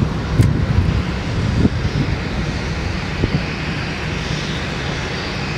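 Jet airliner's engines running in a steady rumble, with a higher hiss building near the end.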